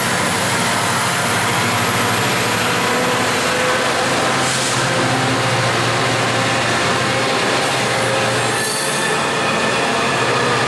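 MARC commuter train's passenger coaches rolling past at a grade crossing: a steady, loud rush of wheels on rail, with thin steady squealing tones from the wheels.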